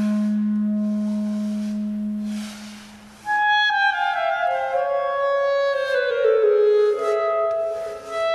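Solo clarinet improvising: a long low note is held and fades out about three seconds in. A higher note then enters sharply and steps down in a descending run of notes, settling on a held middle note near the end.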